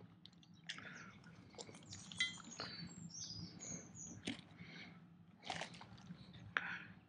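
Faint clicking and rubbing of plastic and rubber as a JJ-CCR rebreather's bailout valve mouthpiece and corrugated breathing hoses are handled and fitted together, with a few sharper clicks scattered through.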